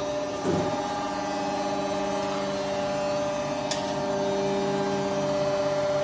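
Aluminium die casting machine's electric motor and pump running with a steady hum of several held tones. There is a short thud about half a second in and a sharp click near four seconds.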